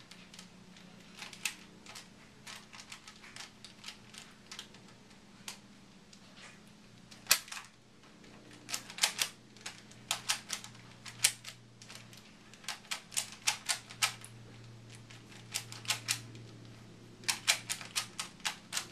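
Rubik's Cube being turned quickly by hand during a speed solve: quick runs of sharp plastic clicks as the layers snap round, with short pauses between the runs.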